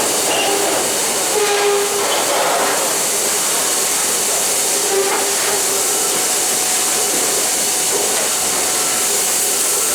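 Grain pouring out of rail hopper wagons into an unloading pit: a steady loud rushing hiss, with a few brief faint squeals.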